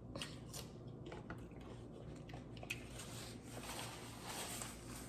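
A person chewing food with the mouth, faint wet squishing and small clicks.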